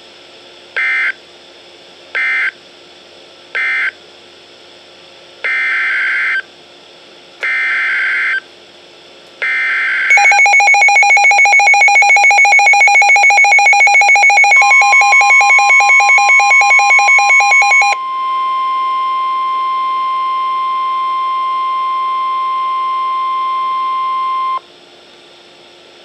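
NOAA Weather Radio Emergency Alert System tones played through a Midland weather radio's speaker. First come three short screeching SAME data bursts, then three longer ones, the digital header of the next warning. About ten seconds in the radio's own alarm starts beeping in rapid pulses; the steady single-pitch 1050 Hz NWS warning alert tone comes in partway through, carries on alone after the pulsing stops, and ends a few seconds before the next announcement.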